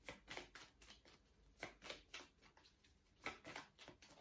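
A deck of oracle cards being shuffled by hand: faint, irregular soft clicks and riffles of card edges, about three a second.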